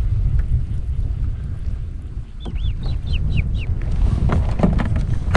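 Wind buffeting the microphone in a steady low rumble, while a bird calls a quick run of about six short, falling chirps a little after the middle. A few light knocks come near the end.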